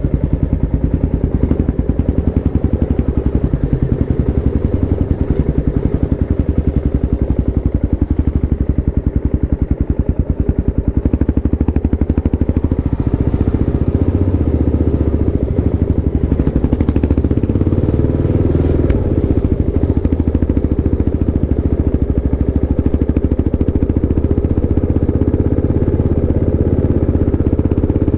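Kawasaki KLX 650 motorcycle's single-cylinder four-stroke engine running steadily, with a dense, even firing pulse.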